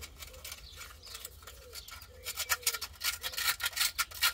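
Sandpaper rubbed by hand over a metal gasket face on the engine, scrubbing at hard, stuck-on old paper gasket residue. It is light at first, then from about halfway becomes a quick back-and-forth scratching of about four or five strokes a second.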